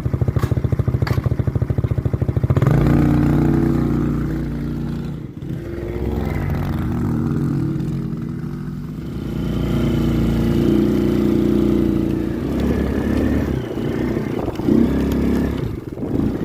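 CFmoto CForce 110 kids' quad's 110cc engine: a fast, even idle for about the first two and a half seconds, then revving up and down repeatedly as the quad is ridden through deep snow.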